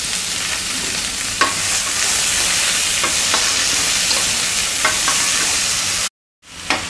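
Freshly added chopped onions sizzling in hot oil in a brass pan, stirred with a spatula that clicks against the pan a few times. The sound drops out completely for a moment near the end.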